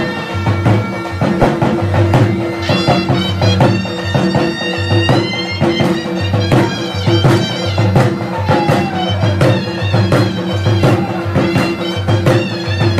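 Live Balochi jhumar folk music: a reedy wind instrument plays a bending melody over a steady drone, with a drum beating a regular rhythm. The melody comes in strongly about two and a half seconds in.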